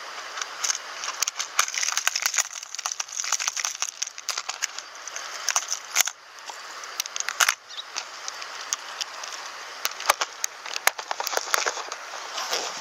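Clear plastic tackle box and hard plastic lures clicking and rattling as fingers rummage through the compartments, with hand rustling, many irregular sharp clicks over a steady hiss.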